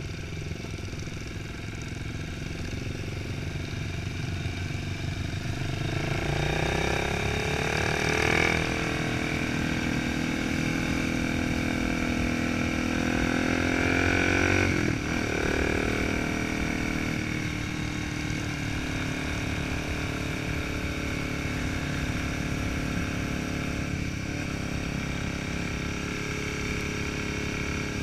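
Motorcycle engine running while riding, heard from the bike itself. Its pitch climbs steadily from about a quarter of the way in as it speeds up, drops abruptly about halfway through, and then settles to a steady, lower run.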